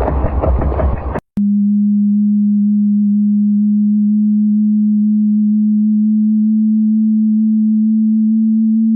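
A dense, noisy rumble cuts off about a second in, followed by a click and then a single steady low pure tone that holds unchanged. It is a space signal converted to sound.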